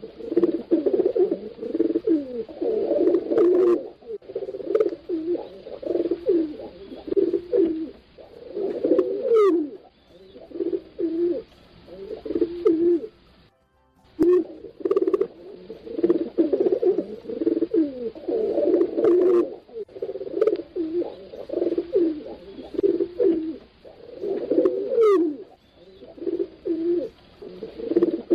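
Several pigeons cooing continuously, their low phrases overlapping and repeating. The sound cuts out for a moment about halfway through, then the cooing resumes, and a thin falling whistle is heard twice.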